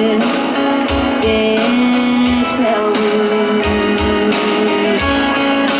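A live country band plays a slow ballad with electric guitar, and a woman sings long held notes over it. It is recorded from the audience, loud and roomy.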